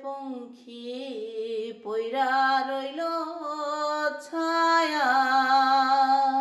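A woman singing a slow Bengali song solo, with no instruments heard, sliding between notes and holding a long note in the second half.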